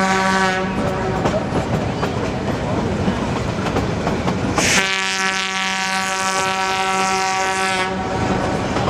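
Horn of the 1947 Porter diesel-electric locomotive hauling the train, a single steady pitch. One blast ends about half a second in, and a second blast of about three seconds starts near the middle. Beneath it runs the steady noise of the narrow-gauge train rolling along the track.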